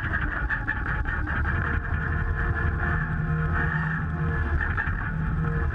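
Logbullet miniforwarder's small engine running steadily while the machine drives along.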